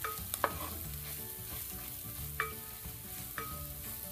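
Wooden spoon stirring onions, garlic and ginger frying in coconut oil in a metal pot, with a steady sizzle as coriander powder is sautéed in. A few sharp knocks of the spoon against the pot, the pot ringing briefly after some of them.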